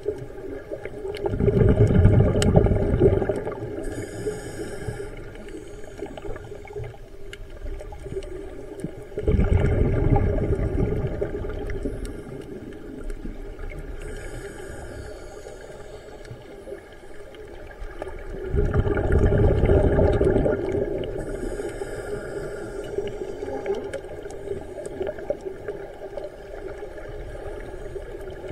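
Scuba diver breathing through a regulator underwater: three long rushes of exhaled bubbles about nine seconds apart, each followed a couple of seconds later by the fainter hiss of an inhaled breath, over a steady low hum.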